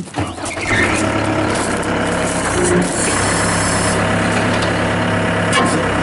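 A Gehl skid steer loader's engine starts within the first second, catches quickly and runs steadily. Its sound steps up a little about three seconds in.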